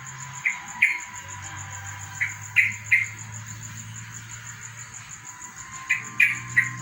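Sooty-headed bulbul (trucukan) calling in three short bursts of two or three quick bubbly notes each. A steady insect trill runs underneath.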